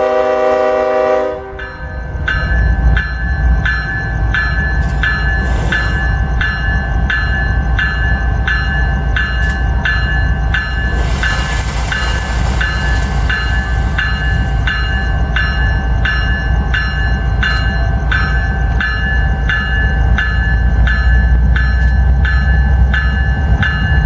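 Ferromex diesel locomotive FXE 4618's air horn sounds a chord that cuts off about a second in. Then a bell rings steadily about twice a second over the low rumble of the locomotive pulling away, with a hiss about halfway through.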